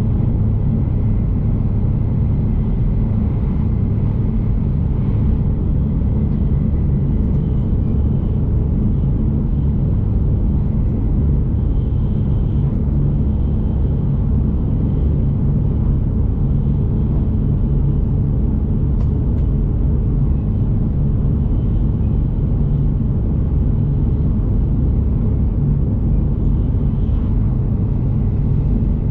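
Shinkansen bullet train running at speed, heard from inside the passenger cabin: a steady low rumble of the running gear on the track, with no change in loudness.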